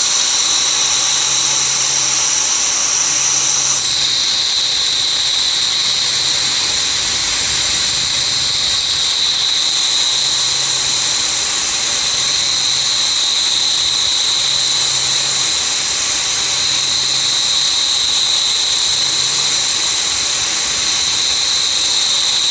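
CNC router spindle whining steadily as it mills a cavity into a mold plate. The high whine drops in pitch about four seconds in, and a low hum comes and goes every second or two.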